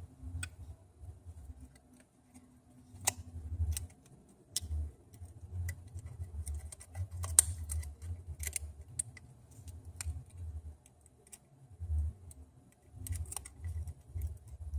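Scattered small clicks and taps of tools and small parts being handled while the front camera is fitted into an iPhone 6 Plus replacement screen assembly, over a low rumble of handling noise.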